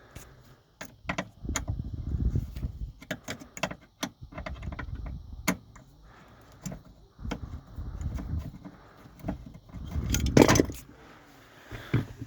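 Handling noise from taking out small Phillips screws and working a hood release handle bracket loose: scattered sharp clicks, small metal rattles and knocks, with a louder clatter about ten seconds in.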